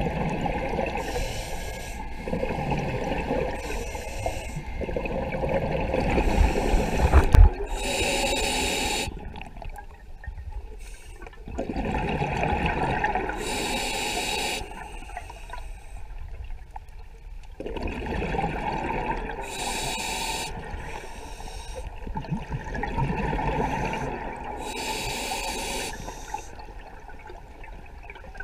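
Scuba diver breathing through a regulator, heard from an underwater camera: a regular cycle of hissing breaths and rushing, gurgling exhaled bubbles about every five to six seconds. There is a single low thump about seven seconds in.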